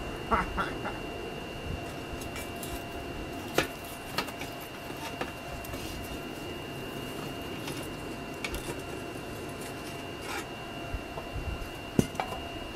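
Homemade furnace burning with a steady rushing hum and a thin high whine, broken by a few sharp metal knocks and scrapes as steel rods and a shovel work the glowing rock inside it. The loudest knock comes near the end, as a lump is lifted out on the shovel.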